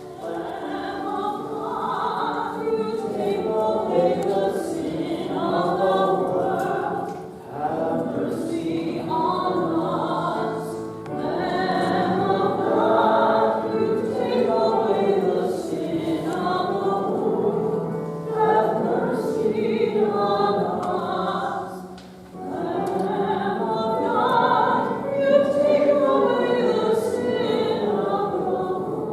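A choir singing sacred music in long phrases, with brief breaks between phrases.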